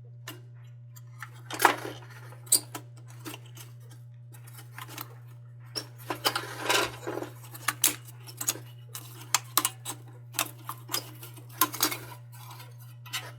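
Irregular light metallic clicks and clinks as the pressed-metal crown of a Dietz No. 2 Blizzard lantern is worked off by hand, bending its crushed tabs. A steady low hum runs underneath.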